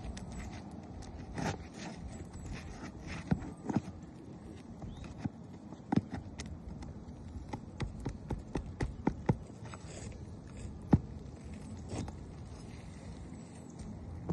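Irregular footsteps with sharp knocks and scuffs underfoot, busiest in the middle, with one louder knock about eleven seconds in.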